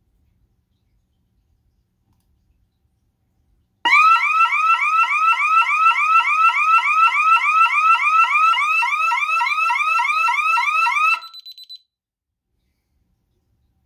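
DSC security system's alarm siren sounding a fast, repeating rising yelp, about four sweeps a second, starting about four seconds in: the system is in alarm. It cuts off suddenly after about seven seconds with a few short stutters as the system is disarmed.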